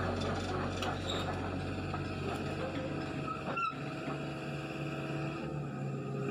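Hitachi Zaxis 110 hydraulic excavator running while its upper structure swings and the boom lowers; the low steady hum changes about halfway through.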